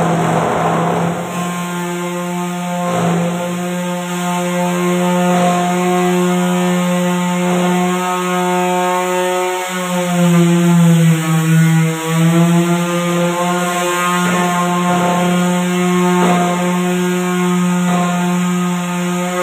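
Electric palm sander running steadily against a wooden door frame, sanding the wood ahead of a polyurethane finish. Its motor pitch sags slightly for a couple of seconds around the middle.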